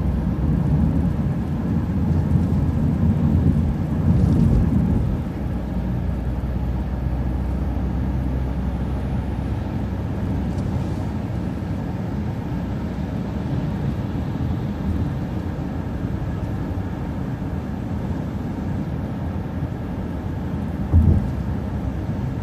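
Transit bus driving along the road, heard from inside: a steady low rumble of engine and road noise, a little louder in the first few seconds, with one short thump near the end.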